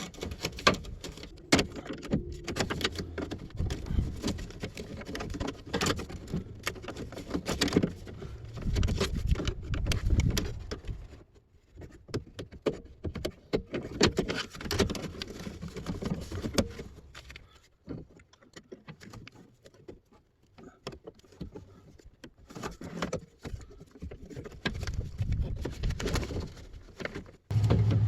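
Irregular clicks, knocks and small rattles of hand work on a 1999 Chevrolet Suburban's rear door internals: plastic trim clips, the inner door handle and latch being handled and worked. A steady low hum starts just before the end.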